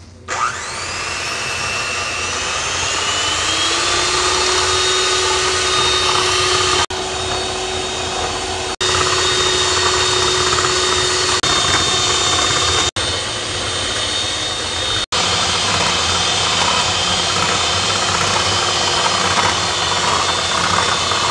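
Electric hand mixer running, its twin beaters whipping instant coffee, sugar and water in a glass bowl toward a foam. The motor's whine rises over the first few seconds as it comes up to speed, then holds steady, with a few abrupt brief breaks.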